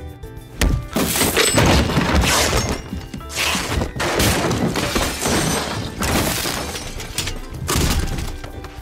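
A man wrecking a room in a film soundtrack: a run of loud crashes and breaking, shattering objects in several waves. Music continues faintly underneath and comes back clearly near the end.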